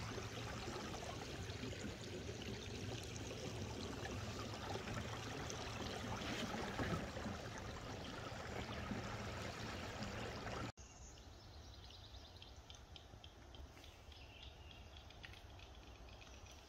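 Water trickling and lapping along a kayak's hull as a steady wash. It cuts off abruptly about eleven seconds in, leaving a much fainter outdoor background with scattered faint ticks.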